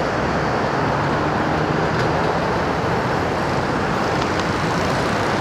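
Steady road traffic noise from cars and vans passing on a multi-lane avenue below, a continuous rush of tyres with a low engine hum under it.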